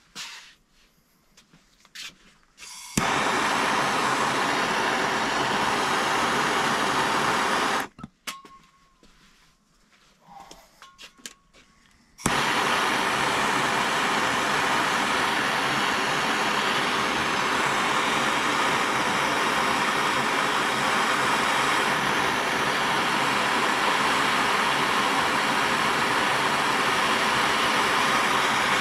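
Hand-held gas torch burning with a steady hiss as it heats a leaking soldered copper pipe joint. It is lit about three seconds in and shut off near eight seconds. A few clicks follow, and it is lit again after about twelve seconds.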